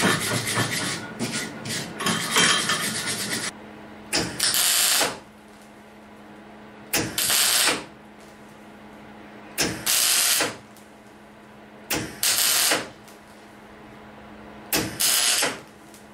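Electric arc welding at low amperage on the thin steel of a scooter exhaust pipe: about five short crackling bursts of the arc, each under a second and a few seconds apart, with a steady low hum in between. For the first few seconds metal parts are handled and knock together on the bench.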